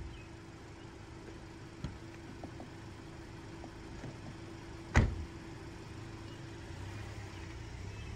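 Car door shut with one solid thump about five seconds in, over the steady low hum of the car's idling engine, which swells a little near the end as the car pulls off.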